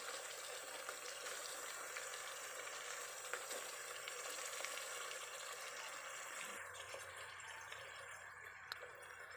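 Fresh pork belly pieces sizzling in hot oil with sautéed garlic and onion in a pot: a steady, fairly faint frying hiss and crackle that eases off a little in the last few seconds.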